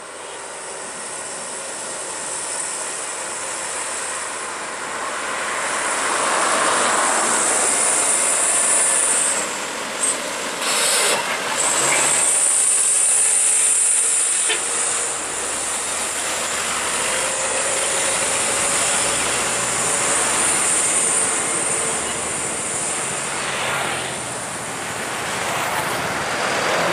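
Diesel light trucks passing close on a highway, engine and tyre noise swelling to a peak as a Mitsubishi Fuso Canter box truck goes by, then steady traffic noise. A steady high hiss runs over it all.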